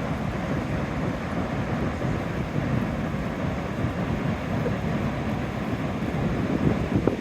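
Strong wind buffeting the microphone in gusts over the steady roar of large surf breaking and rolling onto the beach.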